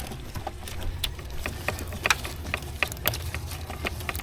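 Irregular clicks and light knocks of hand tools and plastic engine parts being handled, over a steady low hum.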